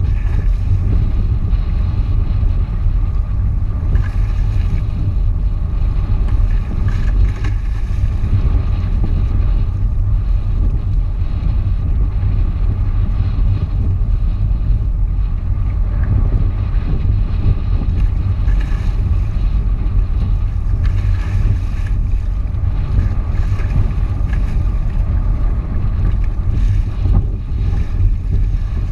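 Wind buffeting the microphone of an action camera on a wingfoil rig, a loud, steady low rumble, with water rushing and splashing as the foil board skims across the loch.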